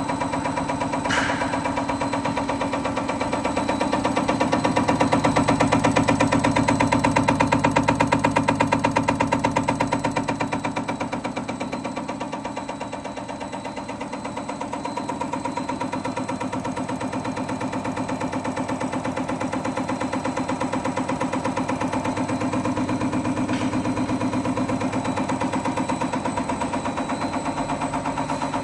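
ZQYM 6320H EUI/EUP injector test bench running: its drive motor hums steadily while the injector under test fires in a fast, even ticking. There is one sharp click about a second in, and the level swells for a few seconds and then settles.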